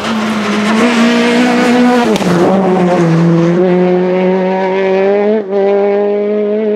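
Rally car engine running hard at high revs. Its note drops sharply about two seconds in, as at a gear change, then climbs steadily again, with a brief break in the sound about five and a half seconds in.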